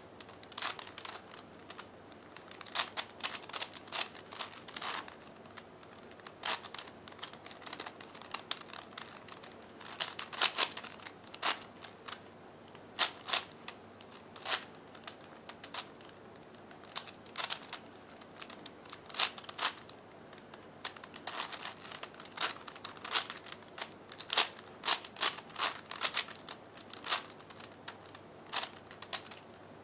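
A white plastic V-Cube 5x5x5 puzzle being turned by hand: irregular runs of quick clicks and clacks as its layers snap round, with short pauses between runs.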